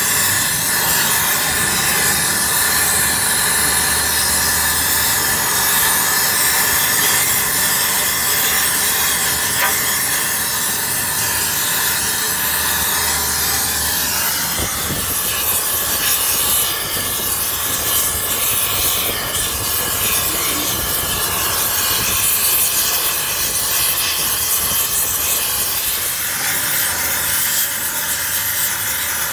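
Gas torch flame hissing steadily as it heats a cracked cast-iron tractor transmission housing for flame-spray welding, its tone shifting slightly about halfway through.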